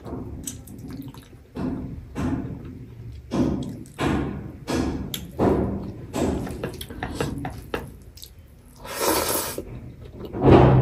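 Close-miked wet chewing and lip-smacking of a person eating rice, chicken curry and greens by hand. The mouth sounds come in a steady run about once a second, with two louder, hissier ones near the end.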